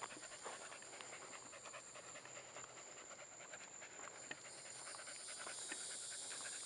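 A dog panting fast, with a steady high-pitched whine behind it that grows louder about four seconds in.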